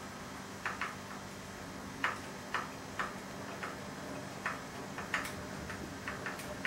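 About a dozen small, sharp clicks and taps at irregular intervals as hands handle the wiring and parts of an upturned radio-controlled car's chassis, over a faint steady hum.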